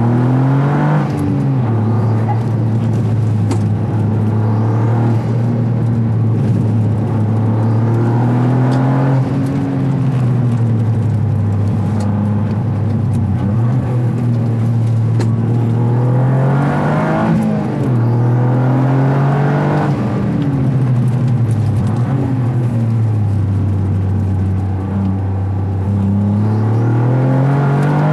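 Toyota GR Yaris turbocharged 1.6-litre three-cylinder engine with an aftermarket intake airbox, heard from a microphone in the engine bay while driving: the engine note rises under acceleration and drops back when the throttle lifts, several times over.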